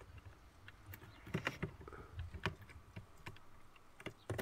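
A handful of light clicks and taps as a multimeter test probe tip touches the screws and plastic connector strip of a heating wiring centre, with some low handling rumble.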